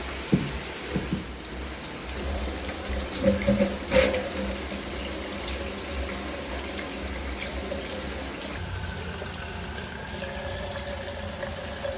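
Water running steadily from a shower, a continuous hissing spray and splash.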